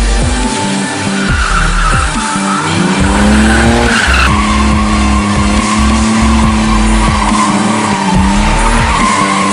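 Opel Omega 2.6-litre drifting: tyres squealing in a long steady howl while the engine revs, its pitch climbing over a couple of seconds and dropping sharply about four seconds in. Electronic music with a heavy thudding bass beat plays over it.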